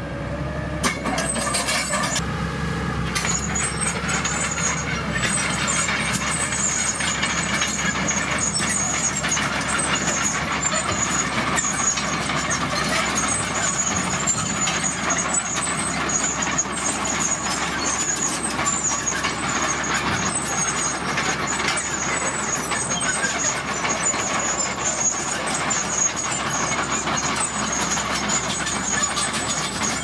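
Dump truck's diesel engine running steadily while its tipper bed is raised and a load of soil is dumped. The first couple of seconds carry a Komatsu D41PX bulldozer's engine before the sound changes.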